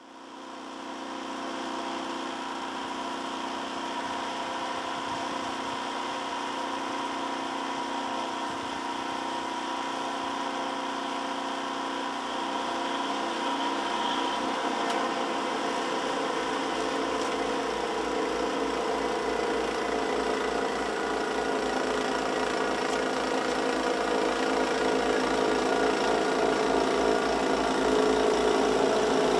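Snow thrower's gasoline engine running steadily, fading in over the first two seconds and growing slowly louder as the machine comes closer while throwing snow.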